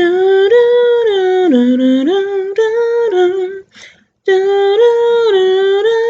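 A woman's voice humming a tune unaccompanied in held notes that step up and down. One phrase breaks off about three and a half seconds in, and a second phrase starts half a second later.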